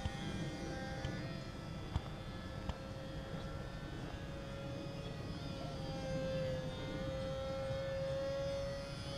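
A HobbyZone Sport Cub S RC plane's small electric motor and propeller whining in flight, holding a steady pitch that dips slightly about halfway through and then climbs back.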